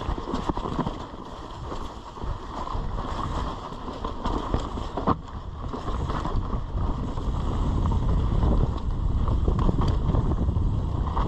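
Mountain bike descending a dirt and rock trail at speed: wind buffeting the camera microphone over the tyres rolling on the ground, with rattles and knocks from the bike over bumps, the sharpest about five seconds in.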